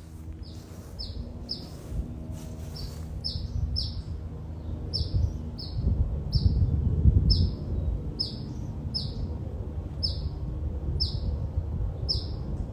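Small birds nesting on a house chirping repeatedly: short, high chirps that fall in pitch, mostly in pairs, over a low rumble that is loudest about halfway through.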